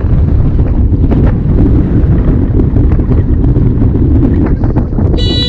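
Steady, loud low rumble of a car driving, road and engine noise picked up by a dashcam microphone. Near the end a brief high ringing tone with several pitches sounds for a fraction of a second.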